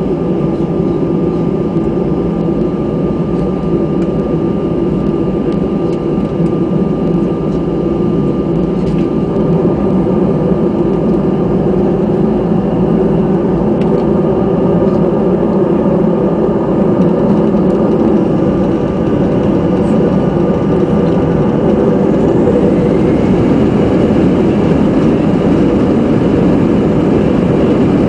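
Airbus A319's jet engines running steadily, heard from inside the cabin at a window seat over the wing. The sound is a steady low rumble with a thin whine, and a faint rising whine comes in near the end.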